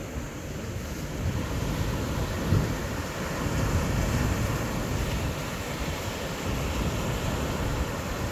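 Wind buffeting the microphone over the hiss of waves washing onto rocks, with one stronger buffet about two and a half seconds in.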